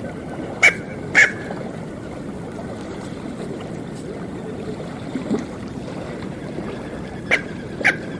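Smew giving short, sharp calls: two in quick succession about a second in and two more near the end, over steady background noise.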